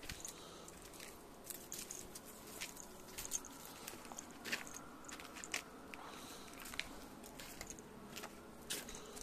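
Faint, irregular crackling and clicking of dry fallen leaves and twigs as a ferret moves and sniffs through leaf litter.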